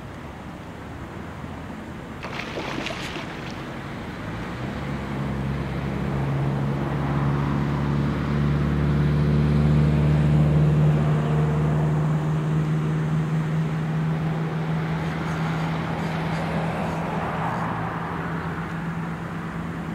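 A passing engine drones steadily at one pitch, growing louder over several seconds and then slowly fading away. A short cluster of clicks sounds about two to three seconds in.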